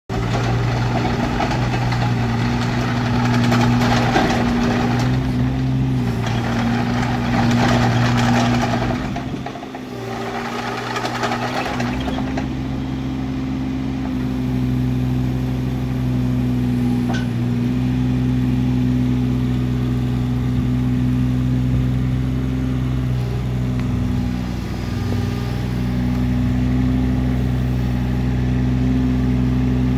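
Kubota KX016-4 mini excavator's three-cylinder diesel engine running steadily while the boom and arm are worked. The engine note grows louder and rougher under hydraulic load three times in the first twelve seconds, then settles back to a steady run.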